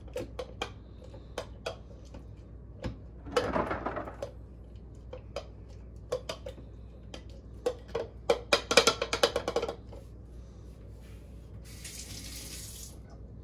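Muddler crushing an orange wheel in a cup: repeated knocks and taps against the bottom, a wet squishing about three seconds in, and a quick run of the loudest knocks around nine seconds. Near the end, a hiss lasting about a second.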